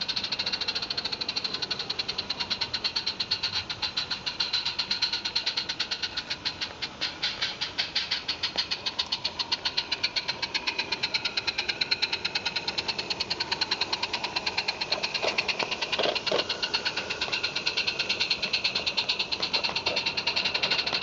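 Roundhouse Jack 0-4-0 live-steam garden-railway locomotive chuffing in a rapid, even rhythm as it hauls a train of loaded sand wagons.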